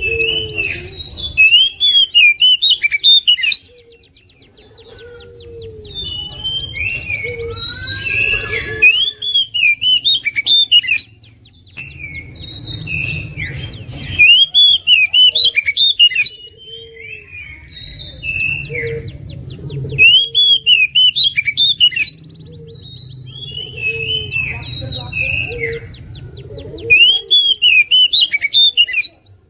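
Oriental magpie-robin (black-breasted kacer) singing loud bouts of fast, sweeping whistled phrases with rapid high trills. Each bout lasts a few seconds and comes back every four to six seconds, with quieter gaps between.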